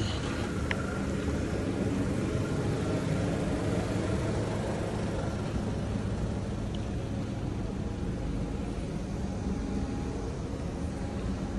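Steady low rumble of vehicle engines and road traffic, with a faint constant hum.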